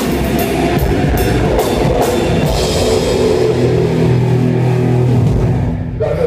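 Live heavy rock band heard close to the drum kit: drums and crashing cymbals with electric guitar. The band stops abruptly about six seconds in.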